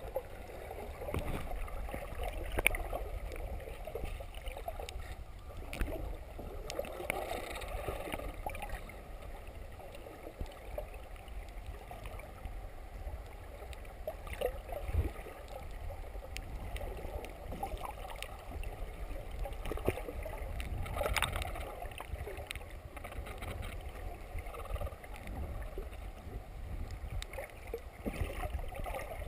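Muffled water sounds heard with the microphone underwater: a steady low rumble and sloshing, with bubbling and scattered clicks and knocks.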